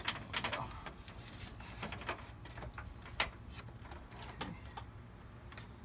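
Plastic radiator cooling-fan shroud clicking, knocking and scraping against the radiator and hoses as it is worked down into place by hand: scattered irregular clicks, the sharpest about three seconds in.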